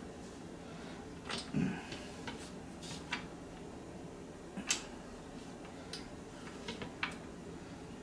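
Scattered light metallic clicks and taps of a bolt and a steel frame being handled while the bolt is worked by hand into its hole, a handful of them spread irregularly about a second apart.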